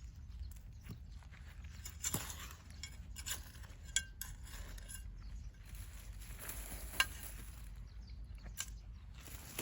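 Scattered light knocks and clinks over a low steady rumble, from potatoes, soil and tools being handled during a potato harvest. The sharpest come about two, four and seven seconds in.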